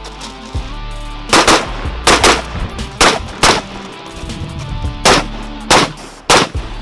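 Rifle shots from a 14.5-inch FERFRANS gas-piston AR-15, fired rapidly: about nine shots, the first six in three quick pairs, then a gap of over a second before three more single shots near the end.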